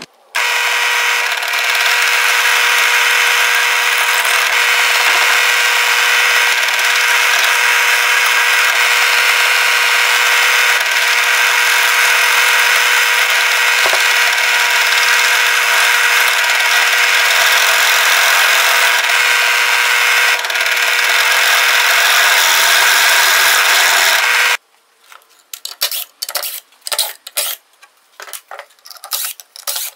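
An electric power tool runs steadily on wood for about twenty-four seconds with a constant whine, then cuts off suddenly. It is followed by a run of light clicks and clatters as small parts are handled.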